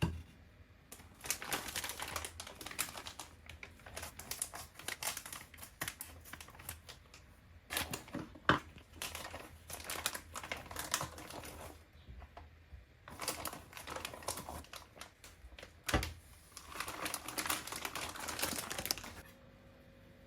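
Household handling noise: bursts of rapid small clicks and rustling, with sharper knocks at the start, about eight seconds in and about sixteen seconds in.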